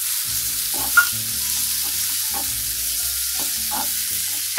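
Chopped onions sizzling in hot oil in a kadhai, with a spatula scraping and knocking against the pan as they are stirred; a sharp knock about a second in.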